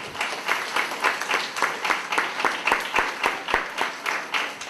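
Audience applauding, with one set of hands close by clapping in a steady beat of about four claps a second over the crowd's applause; it fades out at the end.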